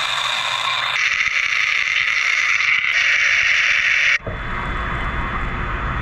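ONA AB35 wire EDM cutting a part submerged in deionized water: a steady high hiss of the sparking wire and the flushing water. About four seconds in it cuts off abruptly and gives way to a lower, rushing noise.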